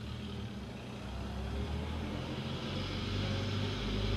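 Vintage car's engine running at low speed, growing steadily louder as the car moves off.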